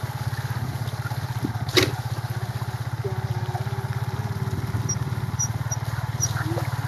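Small motorcycle engine running steadily while the bike is ridden, an even rapid pulsing from the exhaust. A single sharp knock comes about two seconds in.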